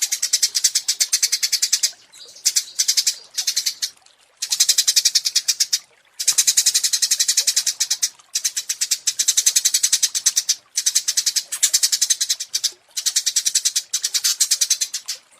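Small songbird song: rapid-fire high chattering trills, about a dozen notes a second, in phrases of one to three seconds broken by short pauses.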